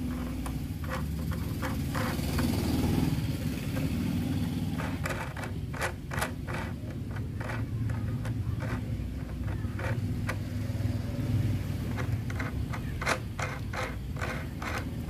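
Small, sharp plastic clicks and ticks, scattered irregularly, as plastic pieces are worked off the bolts of a child's tricycle seat bracket by hand. Under them runs a steady low motor rumble.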